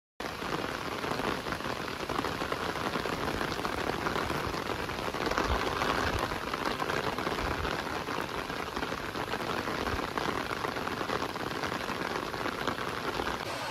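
Steady outdoor water noise, a dense even hiss of water with a fine pattering texture.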